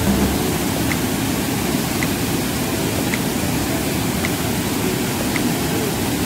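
Brown floodwater rushing over a small weir in a swollen river: a steady, even roar of white water. Faint short high ticks come about once a second over it.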